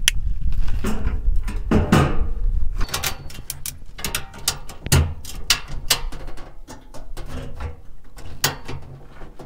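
Irregular clicks, knocks and clatter of camping gear being handled, over a low rumble that fades after the first few seconds.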